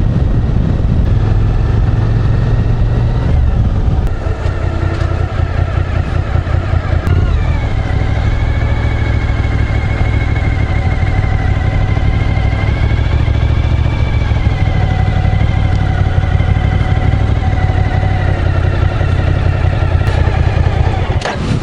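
Suzuki V-Strom motorcycle engine running steadily while riding along, its note shifting about four and seven seconds in. The sound cuts off abruptly just before the end.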